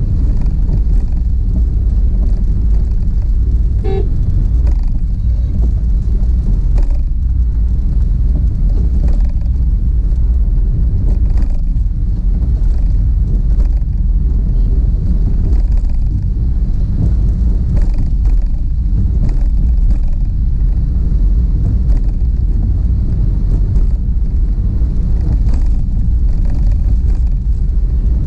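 Steady low rumble of a car driving on a wet road, heard from inside the cabin. A short vehicle horn toot sounds about four seconds in.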